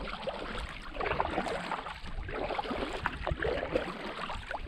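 Water splashing and gurgling around a packraft as it is paddled across calm water, with irregular small splashes and drips from the paddle strokes.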